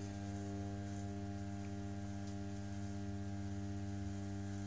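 An electric pottery wheel's motor, run off a lathe speed controller, humming steadily as the wheel spins at a constant speed.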